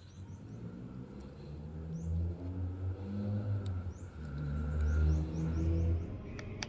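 A motor vehicle's engine running in the background, a low hum that builds over the first few seconds and drops away near the end. A few short high bird chirps sound over it.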